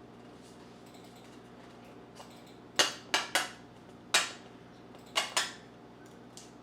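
Six sharp clacks, alone and in quick pairs, over about three seconds: hands working the air cannon and tape while sticking the balloon on.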